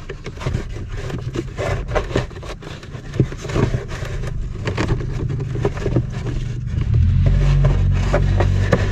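Plastic scraping, clicking and knocking as an old cabin air filter is worked and slid out of its housing behind a car's glove box. A steady low hum comes in about seven seconds in.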